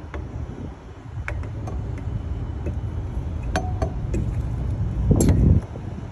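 Hand tools clinking and clicking against metal parts of a truck engine while the belt tension pulley is being worked loose: a few sharp clinks spread out, with a louder clank about five seconds in. A steady low rumble of vehicle noise sits underneath.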